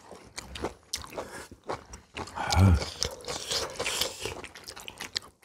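Table sounds of a family meal: chopsticks and spoons clicking and scraping on bowls and dishes, with chewing and crunching of food, and a brief low murmur about two and a half seconds in.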